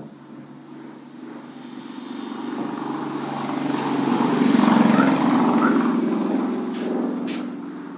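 Engine of a passing vehicle: a steady hum that swells from about two seconds in to a peak around the middle, then fades away near the end.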